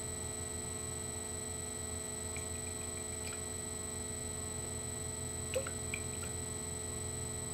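Steady electrical hum with a thin high whine, and a few faint small clicks, the loudest about five and a half seconds in.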